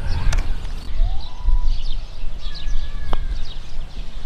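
Wind buffeting the microphone as a steady low rumble, with small birds chirping faintly in the background. A single sharp click comes about three seconds in.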